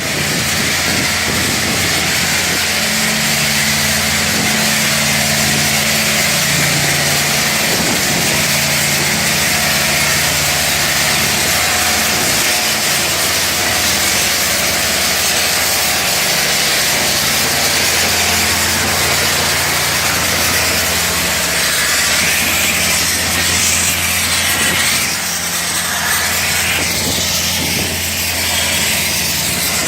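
Loud, steady mechanical noise: a strong even hiss over a low engine-like hum, unbroken throughout.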